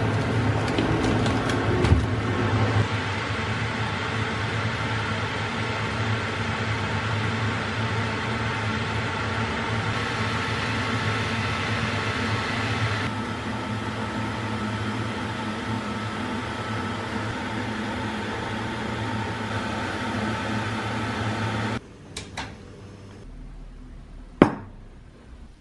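A kitchen appliance motor running with a steady hum that stops abruptly about 22 seconds in, followed by a few light clicks and one sharp click near the end.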